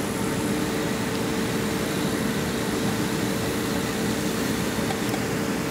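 Steady hum of running machinery, with a constant mid-pitched tone over an even rushing noise.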